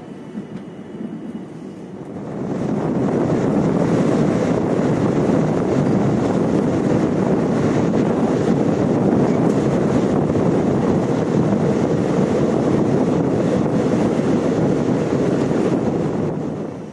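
Loud, even rushing noise of a moving train. It swells about two seconds in and drops away abruptly near the end.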